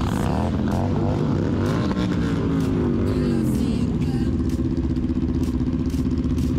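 Motorcycle engines running on the move. The engine pitch falls and rises several times over the first four seconds as the revs change, then holds steady.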